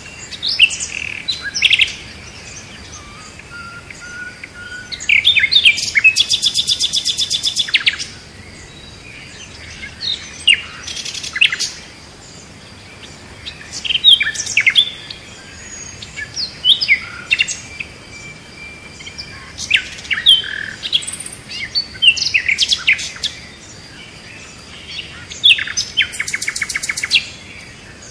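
Songbirds chirping and singing in repeated bursts of short sweeping high notes, with a fast trill around five seconds in and again near the end.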